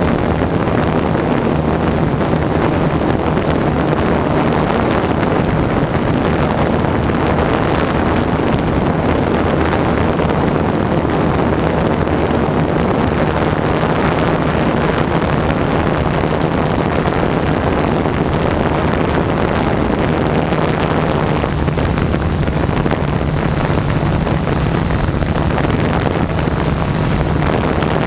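A multirotor drone's motors and propellers heard from its onboard camera: a steady, unbroken hum mixed with wind rush. It grows a little hissier in the last several seconds.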